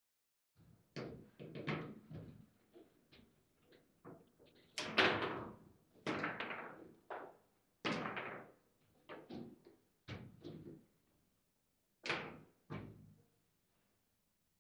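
Foosball table knocking: the ball and the rod-mounted players striking the table, about fifteen to twenty sharp knocks at irregular intervals, each with a short ringing tail. The loudest comes about five seconds in.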